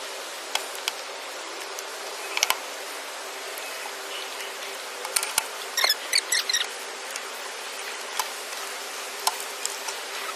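A screwdriver driving screws back into an embroidery-machine control box, with scattered small clicks and ticks of metal on metal, including a quick cluster about halfway through, over a steady hiss.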